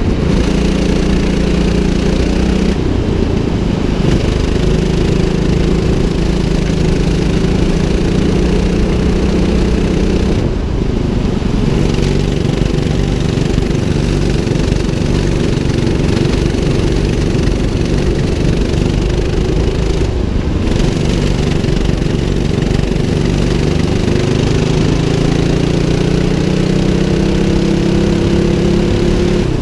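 Go-kart's single 200cc engine running hard under the driver, its pitch falling as the throttle is lifted for corners about three, ten and twenty seconds in, then climbing steadily as it accelerates near the end.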